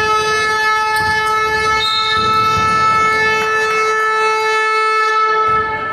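Basketball arena buzzer sounding one long, steady tone that cuts off shortly before the end.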